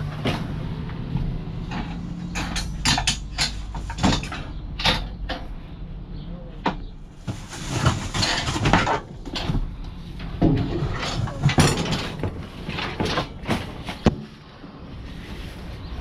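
Irregular knocks, clanks and rattles of hard objects being handled and set down, over a steady low hum.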